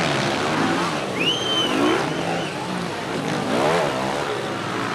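Small dirt bike engines revving, rising and falling in pitch twice, over a steady lower engine drone.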